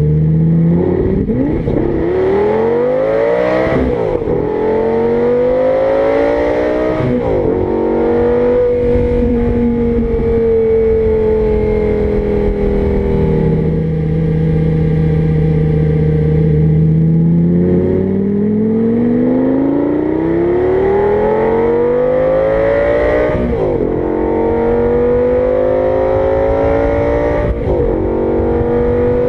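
Lamborghini Gallardo Spyder's V10 engine accelerating up through the gears: its pitch climbs and drops back at two upshifts, holds steady for several seconds at a cruise, then climbs through two more upshifts near the end.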